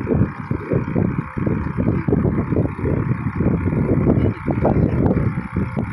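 Strong wind buffeting the microphone in irregular gusts, over a steady rush of choppy water.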